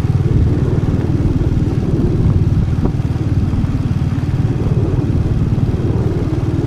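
Motorcycle engine running steadily while riding: an even, low pulsing throb that holds level throughout.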